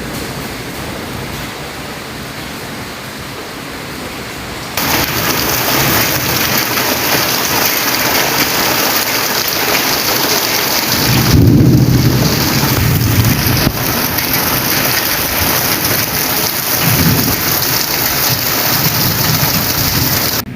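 Heavy rain pouring steadily, turning suddenly louder about five seconds in, with a rolling rumble of thunder around the middle and lighter rumbles near the end.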